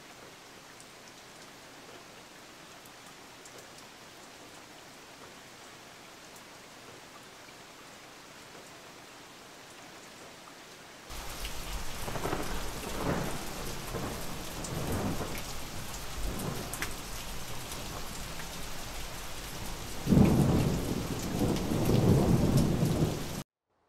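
Faint steady hiss, then about eleven seconds in heavy rain comes in with several low rolls of thunder, the loudest near the end. It cuts off suddenly just before the end.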